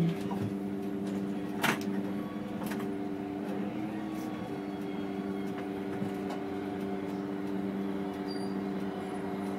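City bus diesel engine running steadily at low, even revs while the bus creeps up behind a bus at a stop. There is a single sharp click about two seconds in.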